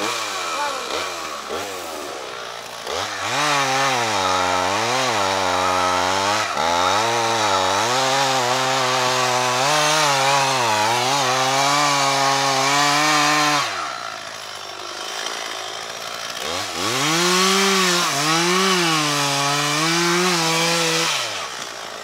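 Stihl MS 440 two-stroke chainsaw with a 63 cm bar cutting into a tree trunk at full throttle, its pitch wavering as it bogs under load and picks up again. About two-thirds of the way through it drops back to idle, then revs up again for a few seconds before easing off near the end.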